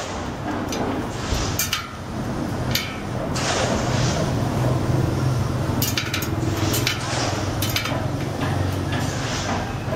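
Steel bicycle spokes clinking against each other and the rim as they are handled and threaded into a wheel: scattered sharp metallic ticks, several in quick succession about six seconds in. A steady low hum runs underneath.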